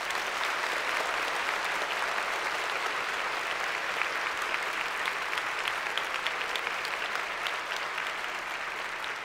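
A crowd applauding: a steady, even sound of many hands clapping.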